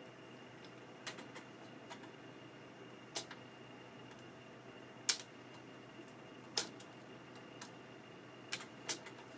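Irregular small clicks and taps of a screwdriver and small parts against a U-matic video recorder's metal deck mechanism while the worm-drive pulley assembly is put back together, about nine in all, the loudest about five and six and a half seconds in, over a faint steady hiss.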